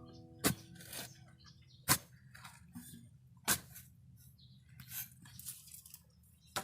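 Three sharp knocks or clicks, roughly a second and a half apart, with faint scattered rustling and tapping between them.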